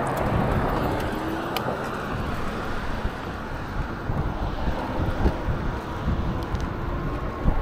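Wind buffeting an action camera's bare microphone while riding, mixed with road and traffic noise.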